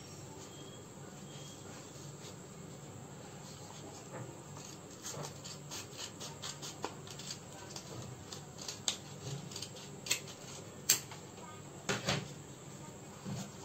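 Scissors cutting through folded paper: a run of short sharp snips over the second half, with the loudest clicks near the end, along with paper being handled.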